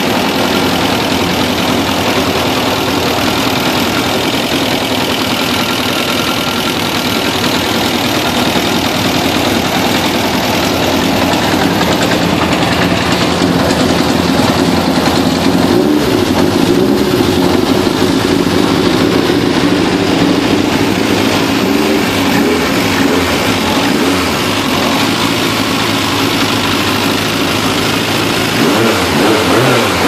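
Spiess-built four-cylinder racing engine of a Reynard Formula 3 car running steadily at idle, briefly raised in the middle, then blipped up and down several times near the end.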